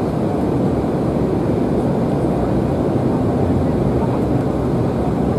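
Steady cabin rumble of an Embraer E190 jet airliner taxiing at low engine power as it turns onto the runway to line up for takeoff, heard from inside the passenger cabin.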